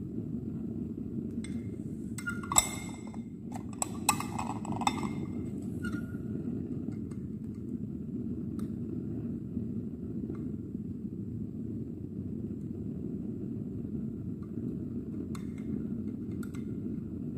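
Metal forceps clicking and scraping against a glass Petri dish while agar is cut out to make a ditch: a cluster of sharp clinks a couple of seconds in, then a few faint ticks, over a steady low background rumble.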